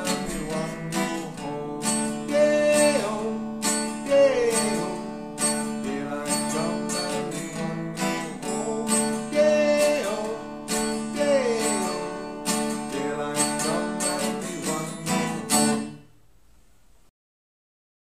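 Steel-string Takamine acoustic guitar strummed in a steady rhythm of chords, stopping abruptly near the end.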